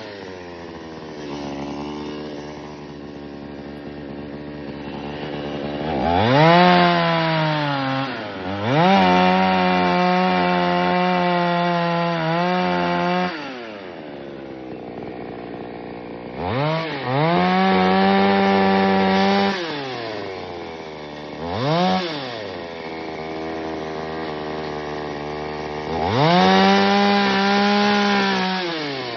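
Chainsaw engine idling and revving up to full speed about five times, holding high for a second to four seconds each time before dropping back to idle. One rev near the middle is only a short blip.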